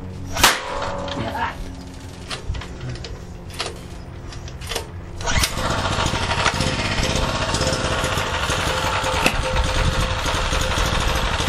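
Small portable generator engine being pull-started on hydrogen-oxygen gas from an electrolyzer. A sharp bang comes about half a second in, and a few knocks follow as the starter is pulled. A little after five seconds the engine catches and runs steadily.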